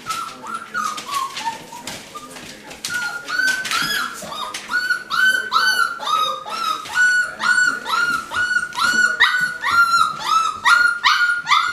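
Young Sheepadoodle puppies crying: a steady string of short, high-pitched whimpers and squeals, about two a second, growing louder and more frequent a few seconds in.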